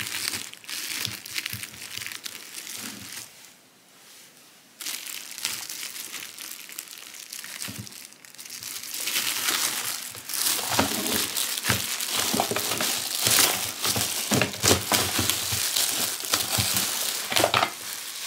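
Clear plastic wrapping crinkling and rustling as it is handled and pulled about on a new electric egg cooker. There is a short lull a few seconds in, and the crinkling gets louder and busier from about halfway on.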